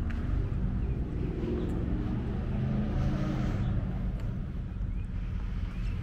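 A car engine running, its pitch rising as it revs up partway through over a steady low rumble.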